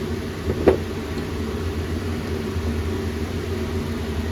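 Steady mechanical hum of a machine running in the workshop, with one sharp metallic click about a second in as a small engine part is handled on the bench.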